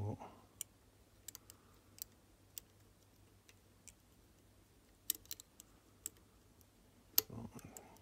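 Faint, small metallic clicks and ticks of a lever-lock pick and tension tool working inside a 10-lever Ingersoll padlock as the levers are lifted and felt one at a time. The clicks come irregularly, a few close together around five seconds in, with the sharpest click about seven seconds in.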